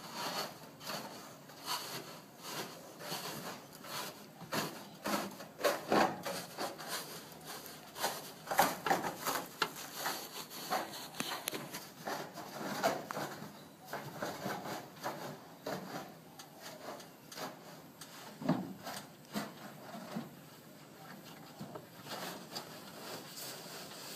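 Gloved hands rubbing and pressing a strip of foam gutter filter down into a metal gutter on a corrugated iron roof, giving irregular scuffs, scrapes and light knocks.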